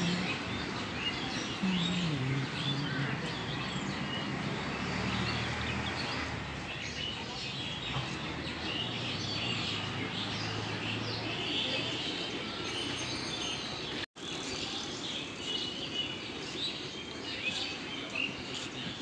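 Small birds chirping and calling over a steady outdoor background hiss, with a low drone that wavers in pitch and fades out about two-thirds of the way through. The sound cuts out for an instant about 14 seconds in.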